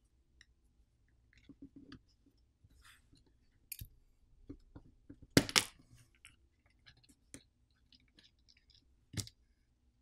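Small clicks and scrapes of pry tools and fingers working on a smartphone's plastic and metal internals as the main board is eased out of its catches. There is a scatter of faint ticks, with the loudest pair of clicks about halfway through and another sharp click near the end.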